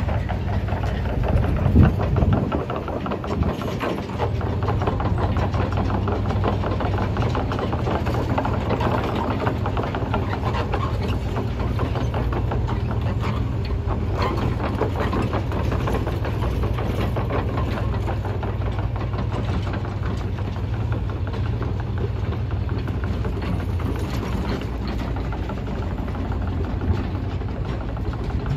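An engine idling steadily, with a brief louder bump about two seconds in.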